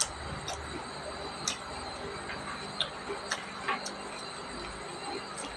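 Fingers scraping and gathering cooked rice on a stainless steel plate, with several sharp clicks and taps on the metal, over a steady high-pitched background whine.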